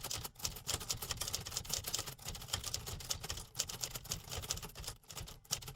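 Typewriter typing: a rapid, irregular clatter of keys striking, over a low hum.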